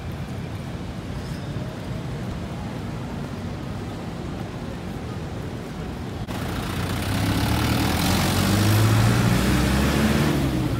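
City street traffic noise at night, steady at first; after an abrupt jump a little past halfway, a louder, lower engine sound from a passing motor vehicle takes over until near the end.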